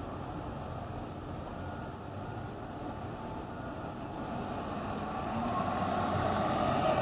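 Road traffic noise: a pickup truck driving past close by, its tyre and engine sound growing louder over the last few seconds as it passes.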